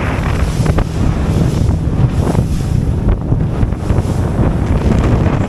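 Wind buffeting the microphone aboard a small motorboat running at speed over choppy water, with the rush of its wake and frequent splashes of spray off the hull.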